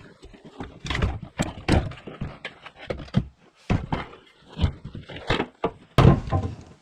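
Irregular hard knocks and clunks from the parts of a garden vacuum being handled, with the motor not running. The knocks come about one or two a second, and the loudest comes near the end.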